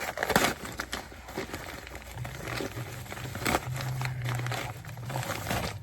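A postal parcel being torn open and its packaging crinkled and rustled by hand, in irregular tearing and crumpling sounds. A low steady hum comes in about two seconds in.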